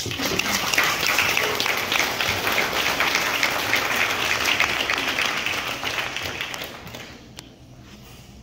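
Audience applauding, a dense patter of many hands clapping that dies away about three-quarters of the way through. A single sharp tap follows near the end.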